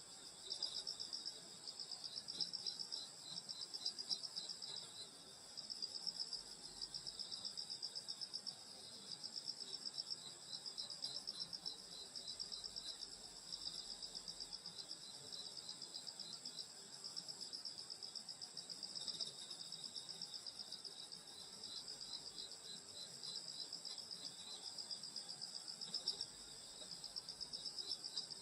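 A chorus of crickets and other grass insects on a summer night, several high steady trills going at once. A lower one among them pulses in rapid, even chirps.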